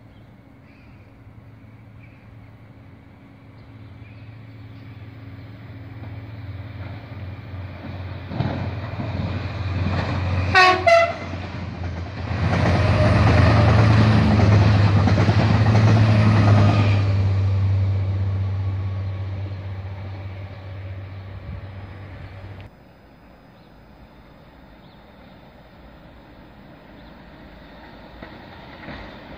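A coupled pair of X76500 diesel AGC railcars approaches, sounds its horn twice briefly about ten seconds in, then passes close with a loud rumble of engines and wheels and fades away.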